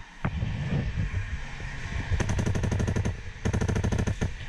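Airsoft guns firing two quick full-auto bursts, each a little under a second long, about two seconds in.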